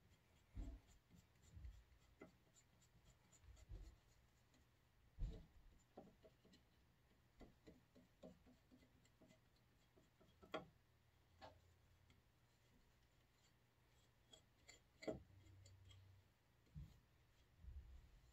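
Faint rubbing of wood glue being spread by hand along a cherry edge strip. A few light knocks come as the strip is handled on the workbench, the loudest about five, ten and fifteen seconds in.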